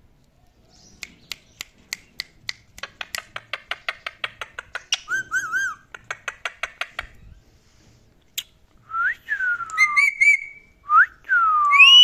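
Indian ringneck parakeet making a quickening run of sharp clicks with a short warbled note in the middle, then, after a pause, a series of loud whistles that slide down and up in pitch.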